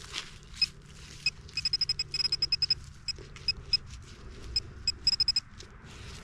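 Metal-detecting pinpointer probe beeping in quick runs of short, high chirps as it is worked through loosened soil, homing in on a buried target; soil rustles faintly underneath.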